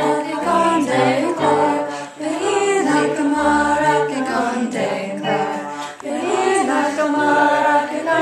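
Several voices singing together with music, in phrases broken by short breaths about two and six seconds in.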